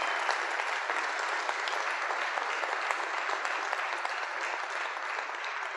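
Audience applauding: a steady round of clapping from a large crowd, easing off slightly near the end.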